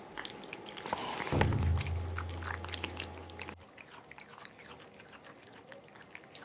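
A cat eating wet canned food, with quick wet chewing and smacking clicks throughout. A low hum comes in about a second in and stops sharply after about two seconds.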